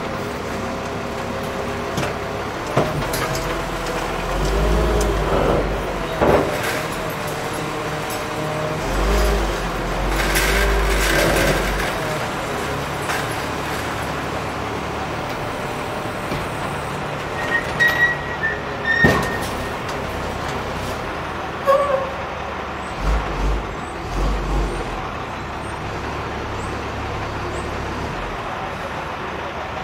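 Heavy roll-off truck's diesel engine running while the hydraulic hoist lowers the loaded steel bin from a tilt to level on the bed, with a steady whine and engine surges in the first twelve seconds. Sharp metal knocks from the steel bin and frame come a few times, and there is a hiss of air about ten seconds in.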